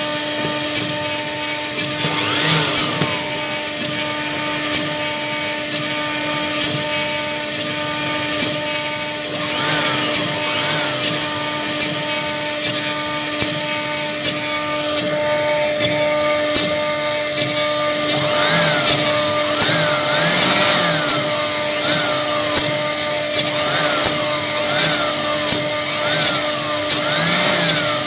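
CNC router running: a steady spindle whine, with the stepper motors whining up and down in pitch again and again as the axes speed up and slow down, and frequent small clicks.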